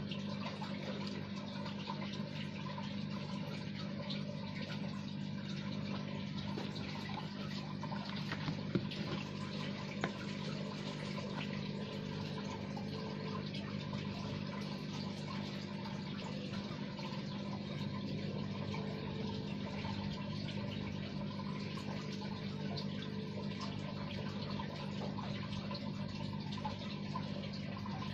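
Steady low hum under an even, water-like hiss, with two faint clicks about nine and ten seconds in.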